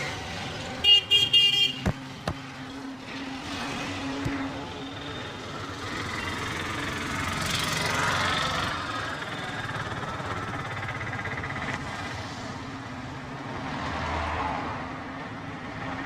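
Street traffic: a vehicle horn sounds in a quick series of short toots about a second in, followed by two sharp clicks. After that comes the steady hum of passing vehicles, swelling and fading.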